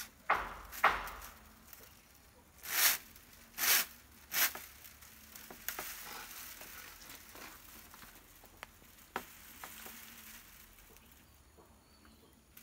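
Bundle of dry coconut-leaf midribs (ekel) rustling and clicking while it is bound with string: several short scraping rustles in the first few seconds, then softer rustling with a few light clicks.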